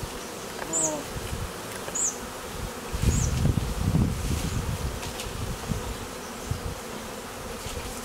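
A honeybee swarm buzzing steadily around a wooden catch box held up to the swarm cluster in a tree, with a low rumble about three seconds in and a few short high chirps in the first few seconds.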